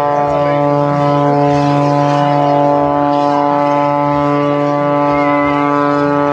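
Engine drone held at one steady pitch, loud and unchanging, with faint brief gliding sounds over it.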